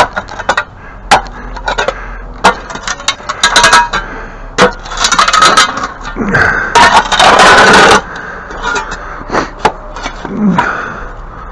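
Digging in sandy soil full of brick rubble: a tool scraping through sand and knocking against brick, many sharp knocks with a longer stretch of scraping about five to eight seconds in.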